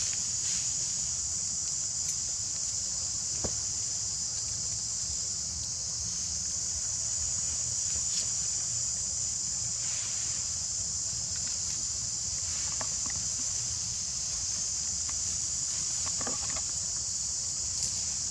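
Steady high-pitched drone of insects, over a low rumble, with a few faint clicks.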